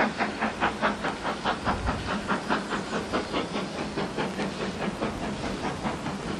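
Steam tank locomotive working a passenger train, its exhaust chuffing at about three beats a second over a steady hiss. The beats grow fainter in the second half.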